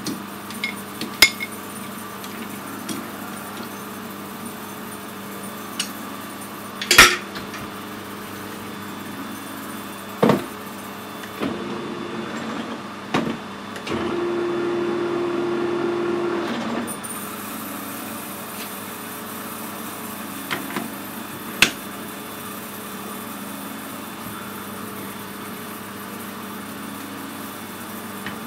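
Metal lathe with a steady motor hum while a length of aluminium bar is turned in the chuck, and a louder steady whine for a couple of seconds about halfway through. Several sharp metal clanks from handling the chuck, chuck key and tool post, the loudest about seven seconds in.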